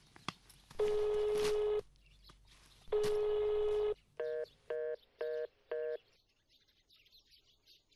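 Phone ringback tone: two long steady beeps about a second apart, then four short beeps a little higher in pitch. The call goes unanswered.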